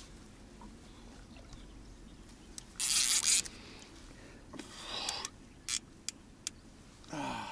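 An angler straining against a big hooked catfish on a bent rod: a few hard, rushing breaths, the loudest about three seconds in, a few sharp clicks, and a short grunt falling in pitch near the end.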